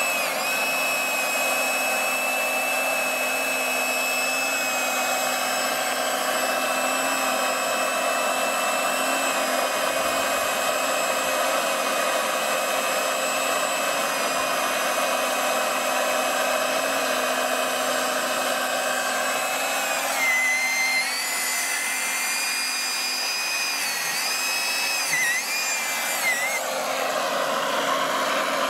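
Radio-controlled Liebherr excavator model with a grapple-saw head working, its electric motor and hydraulics giving a steady high whine that wavers and dips in pitch between about twenty and twenty-six seconds in.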